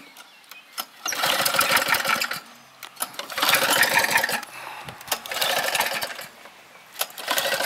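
Old four-stroke petrol lawn mower engine being pull-started about four times, roughly every two seconds. Each pull cranks the engine in a rapid pulsing run of about a second, and it fails to catch.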